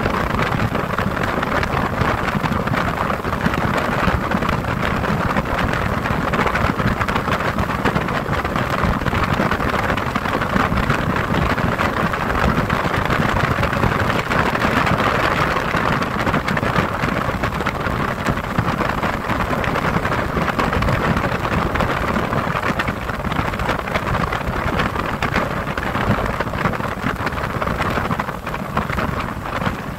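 Steady rush of wind on the microphone and water noise from a small motorboat under way.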